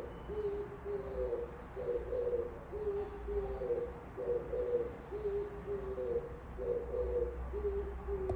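Oriental turtle dove singing: a repeated cooing phrase, a pair of higher coos followed by a pair of slightly lower coos, recurring about every two and a half seconds.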